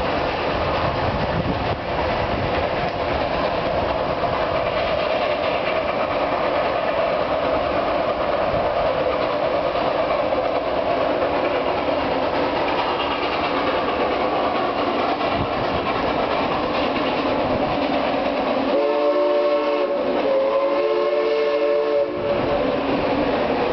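Narrow-gauge steam train running past with a steady rumble, then its multi-tone whistle blows twice near the end, a short blast followed by a longer one.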